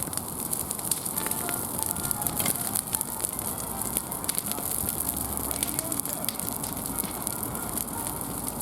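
Wood fire burning, crackling steadily with many small irregular pops and snaps over a soft hiss.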